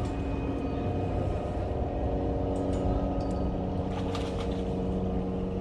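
A motor running steadily, a droning hum of several steady tones, with a few faint clicks around the middle.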